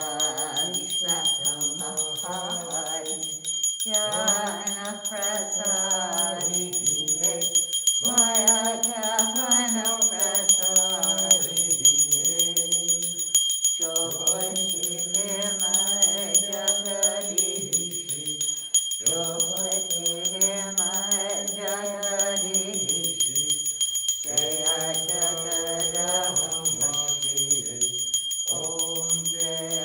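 Voices singing a devotional arti hymn in phrases of about four to six seconds with short breaks, over a small bell rung continuously throughout.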